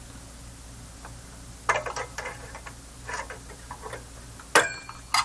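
Irregular clicks and light taps of small tools and parts being handled at a workbench, over a steady low hum. The sharpest click comes about four and a half seconds in.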